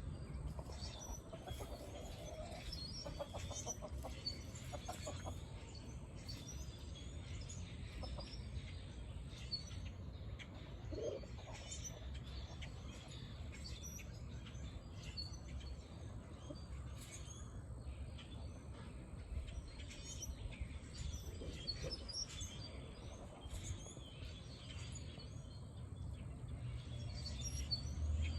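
Backyard ambience: small wild birds chirping on and off, with a few soft low calls from a chicken, over a steady low rumble.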